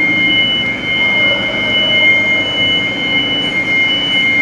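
A steady high-pitched whine of two held tones over a constant low hum, from a running machine.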